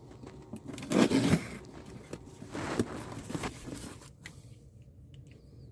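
Utility knife blade slicing through duct tape on a cardboard box seam, a short loud scraping rip about a second in. Then a rougher stretch of cardboard scraping and rustling with small clicks as the box flaps are pulled open, and a few faint clicks near the end.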